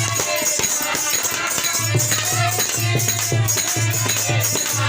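Devotional bhajan music: a voice singing over a steady, even drum beat and jingling shaker-type percussion.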